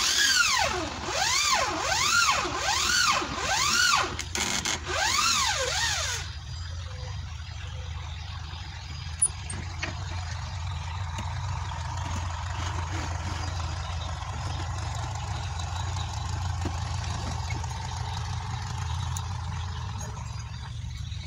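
Handheld power drill boring into a wooden plank, its motor whining up and down in pitch about six times as the speed changes, then stopping about six seconds in. A steady low hum carries on after.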